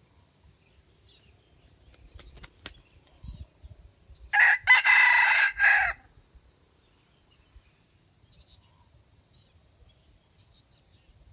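Red junglefowl (wild chicken) rooster crowing once, a crow of about a second and a half that starts about four seconds in and ends in a short, clipped final note. A couple of sharp clicks come a little before it, and faint small-bird chirps follow.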